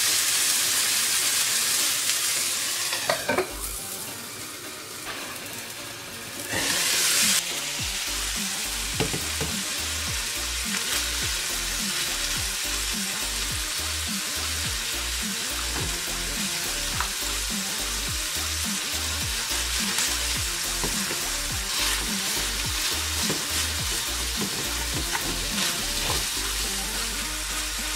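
Cubed meat sizzling as it fries in its own fat in a shallow metal saç pan, with light scrapes and taps of the spoon and fork stirring it. The sizzle is loudest for the first few seconds, drops back, surges briefly about seven seconds in, then settles into a steady hiss.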